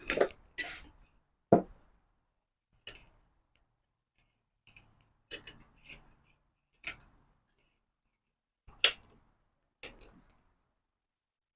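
Scattered handling clicks and knocks, about nine of them at uneven intervals, as tools and a motorcycle wheel are moved about after the tire bead has been broken.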